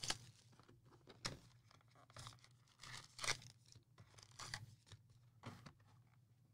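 Trading card packaging being opened by hand: short, scattered bits of tearing and crinkling of wrapper and box.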